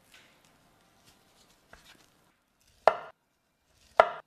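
Kitchen knife slicing through a dragon fruit and striking a wooden cutting board, with two sharp chops about a second apart in the second half. They follow faint soft handling of the fruit at first.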